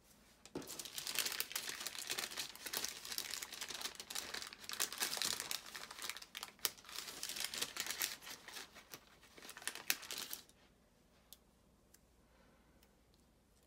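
Paper crinkling and rustling as a sheet is handled, for about ten seconds, then stops, leaving a few light clicks.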